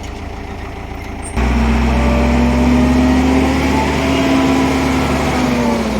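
Heavy vehicle engine running hard at steady revs, cutting in suddenly and loudly about a second in over a lower engine hum, then easing off slightly near the end.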